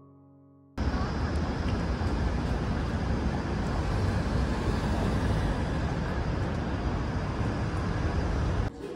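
City street ambience: steady road-traffic noise with a heavy low rumble, starting abruptly about a second in and cutting off just before the end.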